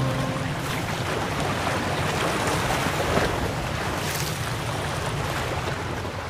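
Sea surf washing onto a pebble beach, a steady rushing wash that swells a little around the middle. The tail of a piece of music fades out in the first half second.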